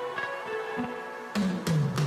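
Background music: soft held melodic notes, then about a second and a third in, drums and a deep bass line come in and the music gets louder.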